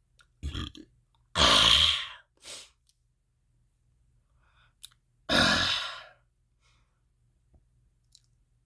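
A person exhaling hard twice, about four seconds apart, each a loud breathy burst close to the microphone that fades over most of a second, with a smaller breath before and after the first.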